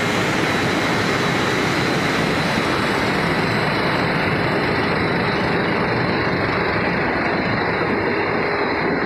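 Machinery of an extruded snack-chip production line running: a steady, loud mechanical din with a few faint steady whines. The high hiss thins out after about three seconds.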